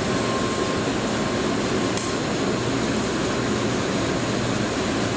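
Steady rushing noise of the station's snow-melting sprinklers spraying water over the Shinkansen tracks.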